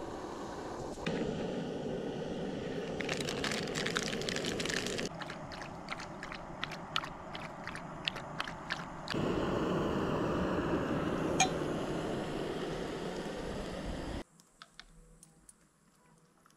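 Dog chewing and licking food off a paper wrapper, with crunching clicks for several seconds, over a steady rushing noise. The rushing stops abruptly a couple of seconds before the end.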